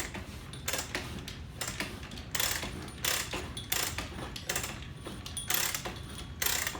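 Ratchet drill press drilling a 3/8-inch hole into a concrete ceiling, its ratchet feed clicking in short repeated strokes about every two-thirds of a second.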